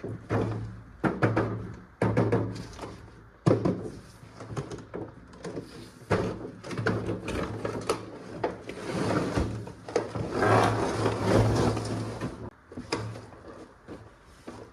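Plastic toy gun parts and packaging being handled: irregular clicks, knocks and clatter, with a denser stretch of rustling and rattling about two-thirds of the way in.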